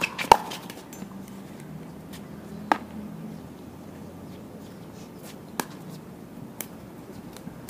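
Pickleball paddles striking a plastic pickleball: two sharp pops, about a third of a second in and again near three seconds, then a couple of fainter taps later.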